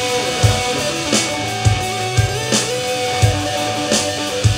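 Rock jam: electric guitar holding long sustained notes over a low bass line, with a drum kit keeping a steady beat.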